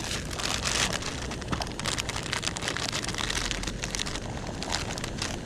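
A pot of budae jjigae (Korean army stew) boiling hard with the lid off, bubbling and spattering with many small pops.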